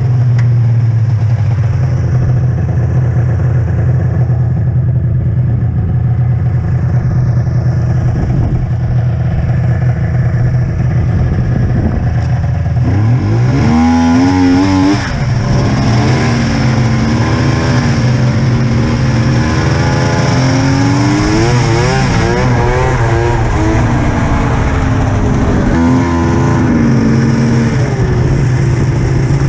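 Polaris Ultra snowmobile's two-stroke engine running under way, steady at first, then from about halfway revving up and down repeatedly as the throttle and speed change.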